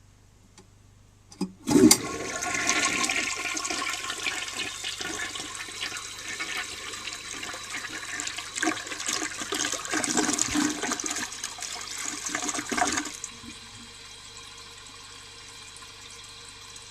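A 1952 Eljer Duplex siphon-jet toilet flushing. There is a clunk of the handle and flush valve about two seconds in, then rushing water for about eleven seconds that cuts off sharply, and then the tank refilling with a steady, quieter hiss.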